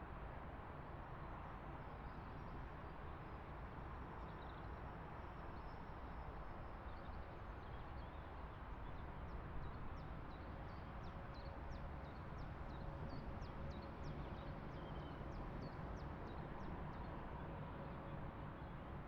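A small bird chirping rapidly, a run of short high chirps that starts about halfway through and stops shortly before the end, over a steady low outdoor rumble with a faint distant hum.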